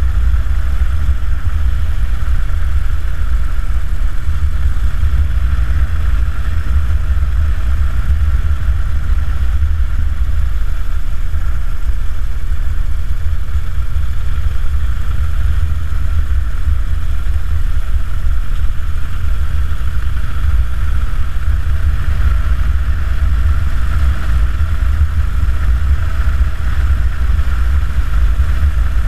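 Harley-Davidson Dyna Super Glide's V-twin engine running at a steady cruise, heard from the rider's seat as a constant deep drone with no change in pace.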